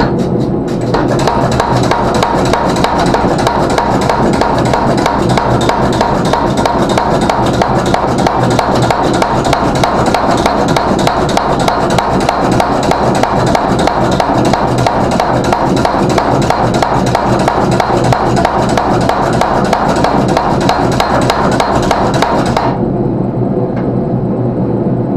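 Power hammer striking a hot Damascus steel billet in a fast, steady rhythm of blows. The blows stop a few seconds before the end, and a steady, lower running noise carries on.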